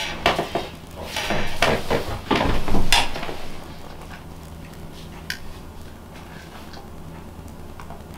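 Irregular clattering and rustling as a wooden bow with a punched leather grip is lifted and handled, for about the first three seconds. After that come a few faint, isolated clicks as the hands work at the grip.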